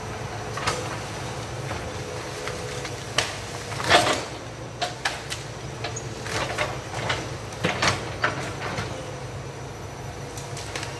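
Hitachi EX200 excavator's diesel engine running steadily while it clears forest, with repeated sharp cracks and knocks of timber and branches breaking, the loudest about four seconds in.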